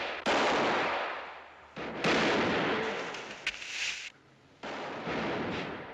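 Revolver gunshots, about three, each dying away in a long echoing tail, with a short sharp crack between the second and third.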